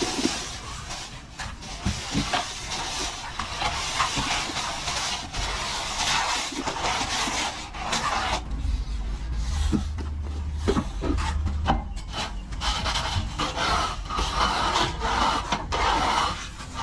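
Rough, continuous scraping and rubbing, as of a plastering trowel working plaster over a wall, broken by small clicks and knocks. A low hum joins for a few seconds in the middle.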